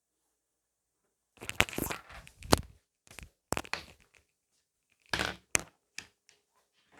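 Close-miked eating sounds: irregular bursts of crackly chewing and mouth noises, starting about a second in and falling away near the end.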